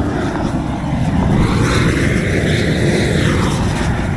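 Dual-jet propane cooker burner lit and running at full flame: a loud, steady, low rushing noise of the gas jets.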